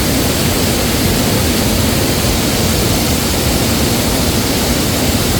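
Rushing stream water: a loud, steady rush with no breaks.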